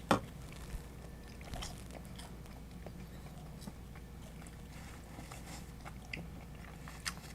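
Close-miked mouth sounds of someone biting and chewing pizza: scattered soft smacks and clicks, with a sharper click just after the start and another near the end.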